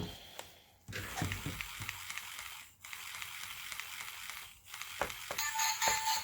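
Gemmy animated dancing dragon switched on: its gear motor runs with a clicking, ratchety rattle, and about five seconds in its tinny song starts playing through the newly rewired speaker, showing the speaker repair works.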